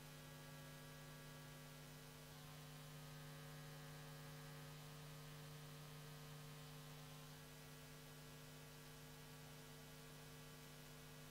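Near silence: a steady low electrical mains hum with faint hiss from the sound feed.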